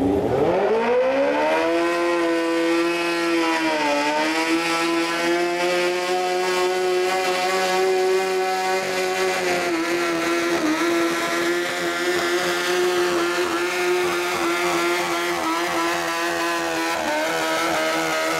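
Modified pulling lawn mower engine revving up fast and then held at high, nearly steady revs, with a brief dip in pitch about four seconds in.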